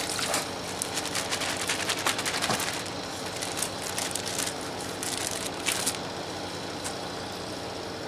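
Soapy water and wet laundry splashing out of a Ziploc bag into a plastic tub at the start, then the emptied plastic bag crinkling and crackling as it is handled, dying down about six seconds in.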